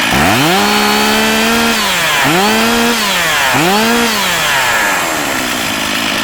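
STIHL MS460 two-stroke chainsaw with a 20-inch bar and chain, revved up to high speed three times: a long rev held about a second and a half, then two shorter ones, each dropping back, before it falls to idle near the end.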